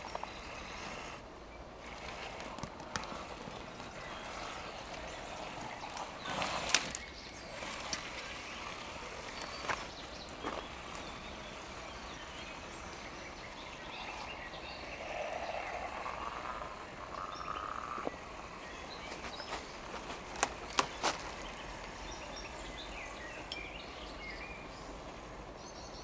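Electric 1:10 motor-on-axle rock crawler driving over a rocky stream bed: a faint motor whine rises in the middle, among scattered sharp knocks of tyres and chassis on stones and twigs, over steady woodland ambience.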